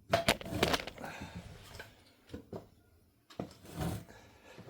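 A few sharp knocks and clatters of hand tools at the engine's cylinder head bolts, the loudest cluster right at the start, then scattered smaller knocks.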